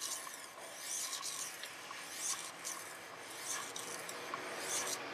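Stainless steel kitchen knife blade drawn across a sharpening stone: about four scraping strokes, roughly one every second and a quarter.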